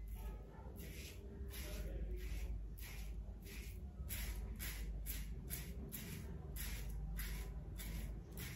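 Merkur 34C double-edge safety razor with a Wilkinson Sword blade scraping through lathered stubble in short repeated strokes, about two a second, coming quicker about halfway through.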